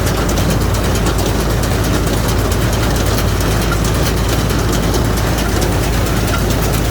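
Hay-baler rig's heavy engine running steadily: a constant low drone with a fast, faint ticking over it.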